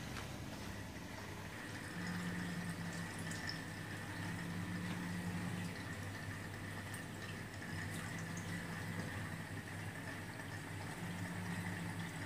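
Reef aquarium equipment running: a steady low hum with water trickling and dripping.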